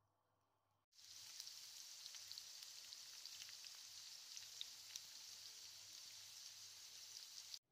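Potato french fries frying in hot oil: a steady sizzling hiss with scattered small pops and crackles. It starts abruptly about a second in and cuts off just before the end.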